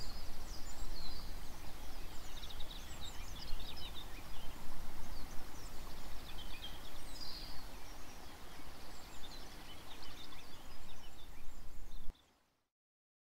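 Small birds chirping in short, scattered high notes over a steady low outdoor rumble. The sound cuts off abruptly about twelve seconds in.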